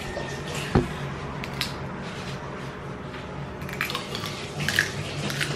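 Crispy lechon (roast pig) skin crackling as it is torn by hand and crunched while chewing, in several short bursts, with a sharp click about a second in.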